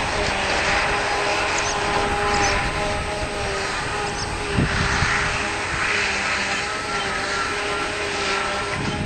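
Silage-harvest machinery running steadily: a heavy diesel drone with a steady whine over it, and a single knock about halfway through.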